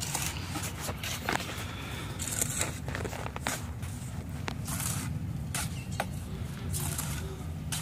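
Mason's steel trowel scraping and tapping mortar on concrete blocks as blocks are set on the wall: a string of short scrapes and knocks at irregular spacing, over a steady low rumble.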